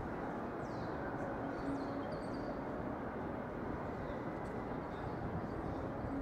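Steady city background noise, a constant traffic rumble, with a few faint high chirps in the first couple of seconds.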